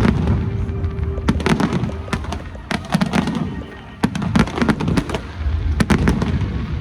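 Aerial fireworks going off in quick succession: many sharp bangs and crackles over a constant low rumble of bursts.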